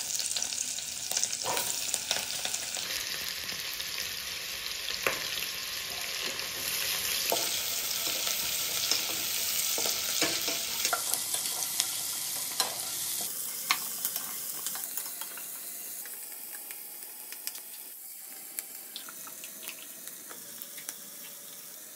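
Sliced onions, green chillies and whole spices sizzling in oil and ghee in a pressure cooker, with a wooden spatula scraping and tapping against the pot as they are stirred. The sizzle fades gradually over the second half.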